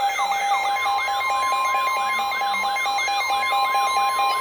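Layered emergency alert tones: a siren-like tone sweeping up and down about four times a second over rapid pulsing beeps. About a second in, a steady high tone joins them: the NOAA Weather Radio 1050 Hz warning alarm, which signals that a warning is about to be read.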